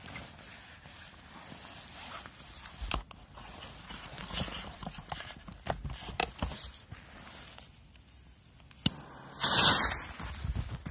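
Footsteps with a few scattered knocks. Near the end comes a sharp crack, then a loud rushing burst about half a second long, fitting a bundle of firecrackers sprinkled with gunpowder catching fire.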